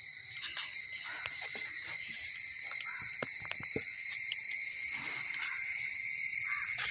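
Steady high-pitched insect chorus, several droning tones held at once, with a few soft clicks around the middle.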